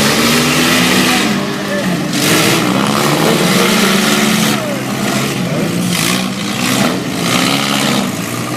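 Several four-cylinder demolition derby car engines running and revving, their pitch rising and falling, with repeated surges of rough exhaust noise.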